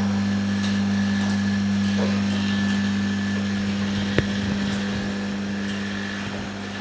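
JiuTu mini laminating machine running steadily with a low hum through its combined lamination and bubble-removal cycle. A single sharp click comes about four seconds in.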